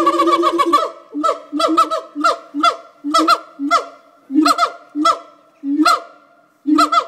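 Siamang gibbons calling loudly: a quick run of short notes in the first second, then a string of sharp barking calls, about two to three a second. Each call has a low hum under a high note that falls in pitch.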